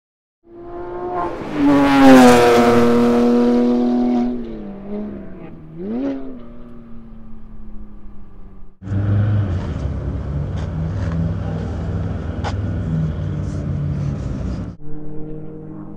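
Race car passing at speed: the engine note builds to its loudest about two seconds in, then drops in pitch as the car moves away, with a brief rev blip about six seconds in. After an abrupt cut about nine seconds in, a rougher, noisier car sound with a low rumble runs for about six seconds and stops sharply.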